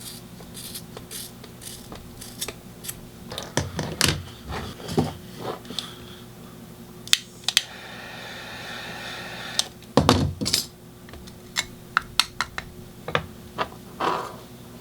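Medical shears cutting a webbing strap and the strap and its buckle hardware being handled: scattered small clicks and knocks, two heavier thumps, and a rasping stretch of about two seconds in the middle.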